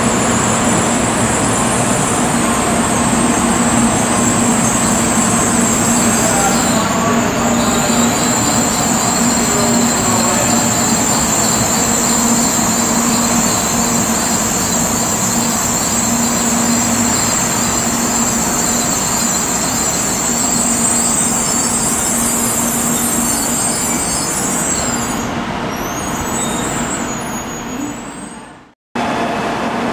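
N700A Shinkansen standing at the platform, its onboard equipment giving a steady hum with a high whine over it. The sound fades out near the end and cuts off.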